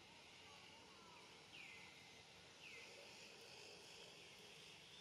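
Faint forest ambience with two falling bird chirps about a second apart, starting about a second and a half in.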